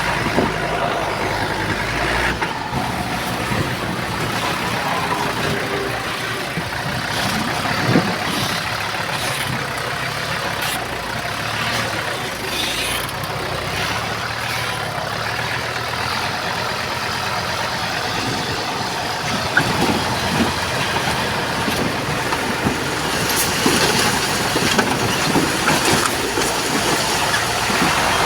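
Heavy diesel earthmoving machinery running steadily at work, with scattered knocks and clanks, the sharpest about 8 and 19.5 seconds in.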